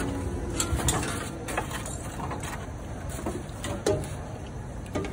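A metal skimmer clinking a few times against a metal cooking pot, with one sharper clink near the end, over a steady low rumble of background noise.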